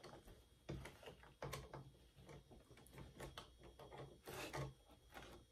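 Faint, scattered clicks and small knocks of plastic parts being handled: the blade clamp of a Cricut Explore Air 2 cutting machine is opened to check that the blade housing is seated, with a short rustle near the end.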